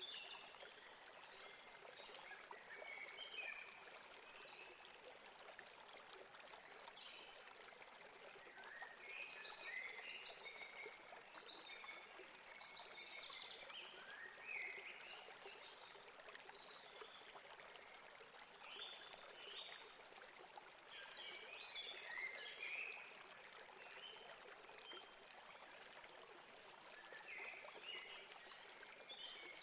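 Faint, steady rush of a flowing river, with birds chirping over it in short calls every second or two.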